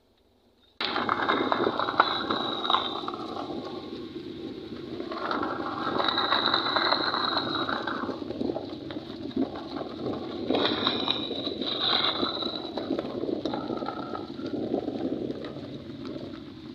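A car rolling over a gravel road: tyres crunching over loose stones, with road noise. It starts suddenly about a second in.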